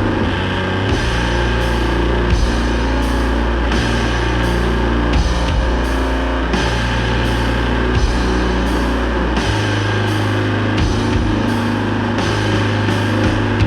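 Doom/sludge metal: heavy, low guitar and bass chords, changing about every three seconds, over a slow, steady drum beat with cymbals.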